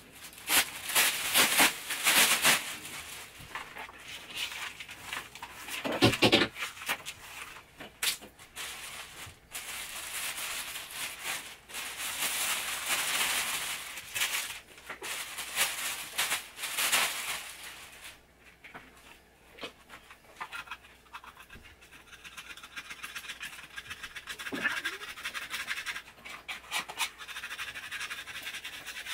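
Hand brush sweeping debris and dried dirt across a grimy kitchen floor into a plastic dustpan: irregular bristle-scraping strokes with pauses and a few knocks of the pan.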